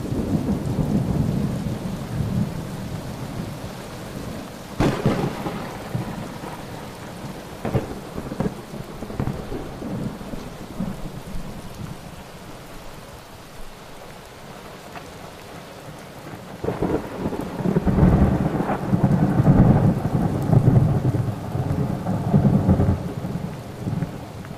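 Heavy rain with thunder: a sharp crack about five seconds in, and long low rumbles at the start and again in the last third, which are the loudest part.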